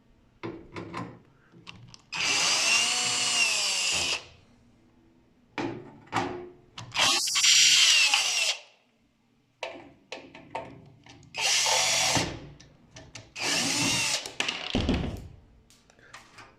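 Cordless electric screwdriver backing out the sheet-metal cabinet screws of a microwave oven: four short runs of the motor whine, its pitch rising and falling, with small clicks and knocks between runs as screws come loose.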